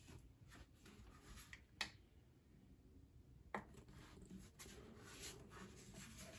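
Faint handling of a plastic-cased portable power station as it is lifted and turned over, with rubbing and two sharp clicks about two seconds apart.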